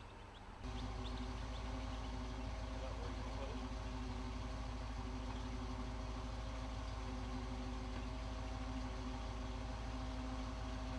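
An engine idling steadily, a constant low rumble with a steady hum. It comes in abruptly about half a second in.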